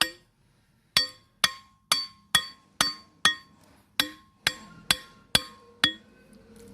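Repeated sharp metallic strikes, about two a second, each ringing briefly. They pause for about a second near the start and stop about six seconds in.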